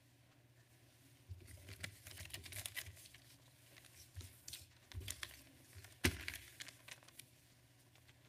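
Faint rustling and clicking handling noises, with one louder knock about six seconds in.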